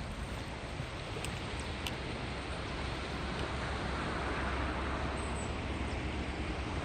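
Wind rumbling on the microphone over the steady rush of sea surf, with a wave swelling about four seconds in.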